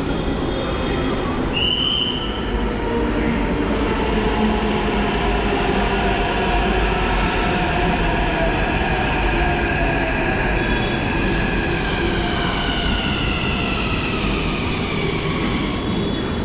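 Hyderabad Metro train pulling into the platform with a steady rumble of wheels on the rails. Its motor whine falls slowly in pitch as the train brakes. A brief high-pitched chirp sounds about two seconds in.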